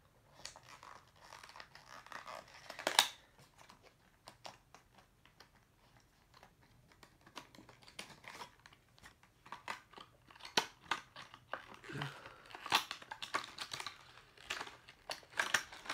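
Packaging of a diecast model car being opened by hand: crinkling and tearing with scattered clicks and taps. A sharp click comes about three seconds in, and the handling gets busier in the last few seconds.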